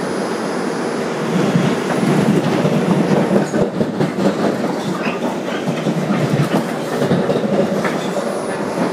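2001 Bombardier R142 subway car running between stations, heard from on board: steady wheel-on-rail running noise.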